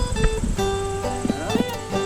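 Background music: plucked acoustic guitar notes ringing over a steady bass line.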